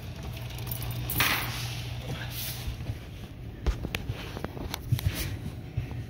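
Cove dishwasher filling with water at the start of a cycle: a steady low hum that fades about three seconds in, with a brief hiss about a second in, then a few sharp clicks and knocks.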